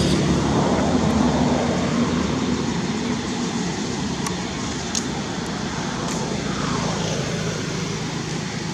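Road traffic noise: a vehicle engine hums and fades away over the first few seconds, leaving a steady background rumble with a few faint clicks.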